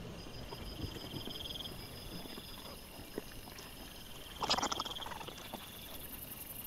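Wild boar and piglets foraging: faint grunts early on, then a louder rough, pulsing grunting or squealing scuffle about four and a half seconds in, over a steady high-pitched chirring.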